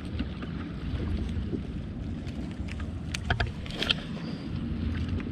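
Wind rumbling on the microphone aboard a bass boat on open water. A few sharp clicks come about three to four seconds in, as a baitcasting rod and reel is swung into a cast.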